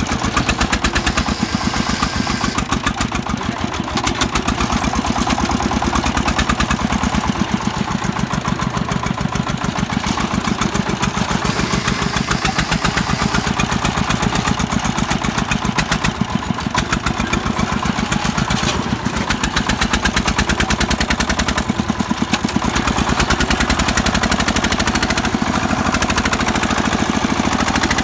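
Single-cylinder diesel engine of a công nông farm truck, chugging steadily with a rapid, even beat.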